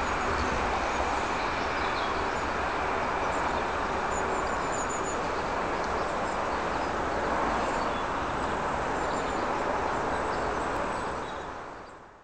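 Steady outdoor rushing noise with a low rumble from distant rail and road traffic, with a few birds chirping faintly now and then. The sound fades out at the very end.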